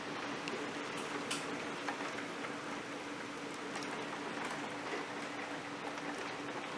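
Steady noise of storm wind and rain, with scattered sharp ticks and a faint low hum underneath.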